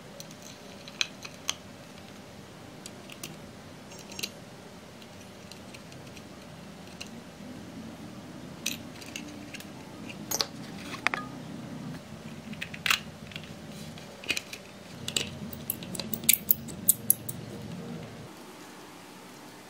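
Small plastic clicks and taps of a coreless motor being fitted into a 3D-printed plastic boat hull and its mount worked with a small screwdriver. The clicks are sparse at first and come thick and fast near the end.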